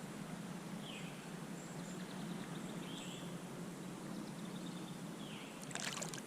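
Quiet riverside ambience with a bird repeating a short call about every second or two over a steady low background noise. A brief rustling burst comes near the end.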